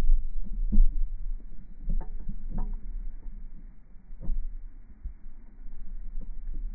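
Low, steady wind rumble on the microphone with a few dull knocks, the loudest right at the start and just under a second in.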